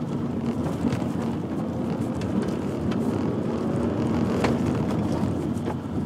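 Hail pelting a moving car: a dense, irregular patter of hits on the body and windscreen over steady engine and road noise, with one sharper hit about four and a half seconds in.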